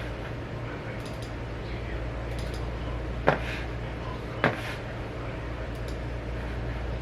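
Two sharp clicks about a second apart, with faint lighter ticks and a steady low hum underneath.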